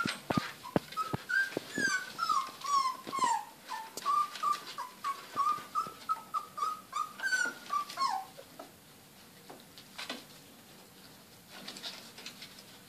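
Border Collie whining: a quick run of short, high whimpers, two or three a second, some sliding down in pitch, that stops about eight seconds in, followed by a few faint scuffs.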